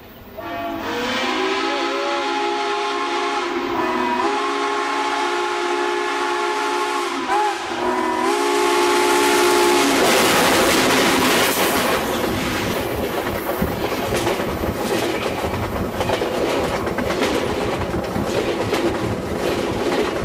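Southern Pacific 4449, a GS-4 4-8-4 steam locomotive, sounding its steam whistle in three long blasts as it bears down, then passing directly overhead from about ten seconds in with a heavy rumble and wheels clattering fast over the rail.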